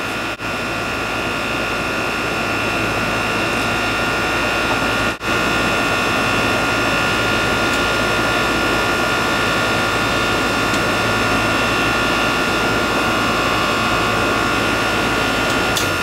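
Old heat pump running in heating mode: a steady mechanical hum and rush from the compressor and outdoor fan, with a steady high whine over it.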